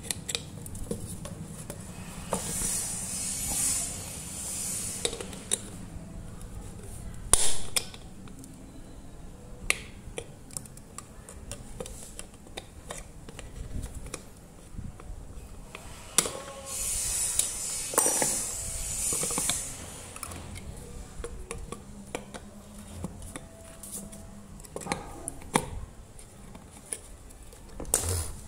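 Metal needle-nose pliers clicking and scraping against an electric kettle's base as it is taken apart: wire connectors are worked loose and the plastic bottom cover is pulled off. Scattered sharp clicks and taps, two longer spells of scraping, and one loud knock about seven seconds in.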